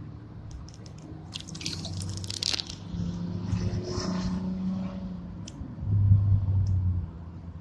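Water splashing and dripping as a wet hand and stone arrowhead come up out of shallow water, with a few sharp drips. Under it runs a low steady hum that is loudest about six seconds in.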